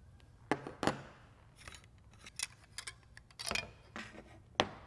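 Metal hand tools and stainless-steel fitting parts clicking and clacking: a spanner wrench and pliers being handled and set down on a wooden workbench while the fitting is taken apart. About half a dozen sharp clinks, the loudest near the end.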